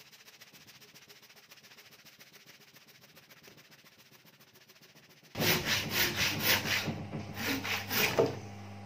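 Handsaw crosscutting a thick timber block by hand, rasping back and forth through the wood. The strokes are faint at first and become loud and forceful about five seconds in, at roughly three a second, stopping shortly before the end.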